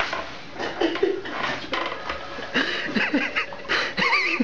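People laughing and giggling in short high-pitched bursts, more densely over the second half.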